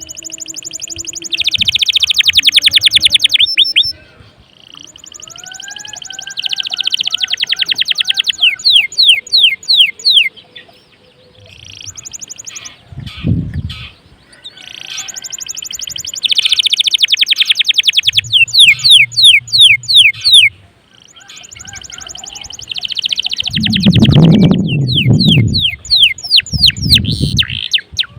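Domestic canary singing in four long phrases, each a fast buzzing trill running into a quick series of sweeping notes, with short pauses between phrases. A low muffled noise comes in briefly about thirteen seconds in, and more strongly about twenty-four seconds in.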